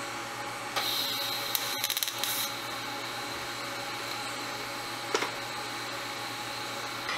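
TIG welder tacking metal pieces with a quick fusion weld, no filler rod: a crackling, hissing burst about a second in as the arc strikes, then a steady welding-machine hum under a faint arc. There is a single sharp click about five seconds in.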